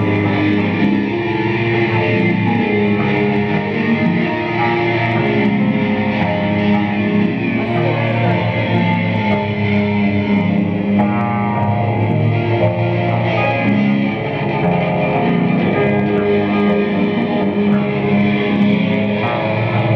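Live noise music: a loud, dense wall of layered droning tones with a distorted, guitar-like sound, shifting in pitch every second or so with no steady beat.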